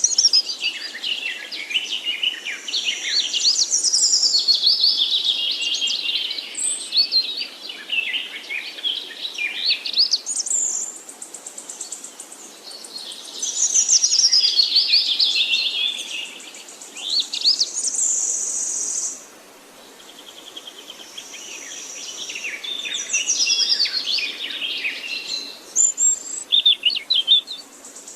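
Songbirds singing long, varied phrases of quick rising and falling notes in three stretches, with short pauses between them. A steady high-pitched buzz comes and goes alongside the song.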